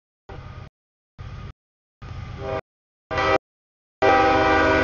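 Freight locomotive air horn sounding a multi-note chord in short snippets broken by dead silence, as from edited cuts, getting louder, with the longest and loudest blast, about a second, near the end.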